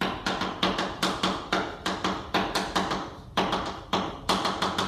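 Chalk tapping and clicking on a blackboard as characters are written: a quick run of sharp clicks, about four or five a second, with a short break a little after three seconds.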